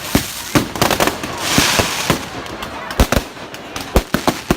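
Fireworks going off: a string of sharp bangs at irregular spacing, with a crackling hiss about a second and a half in.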